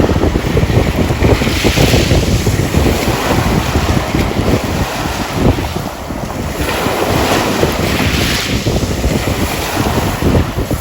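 Heavy wind buffeting the microphone over Black Sea surf, with waves washing in and swelling twice.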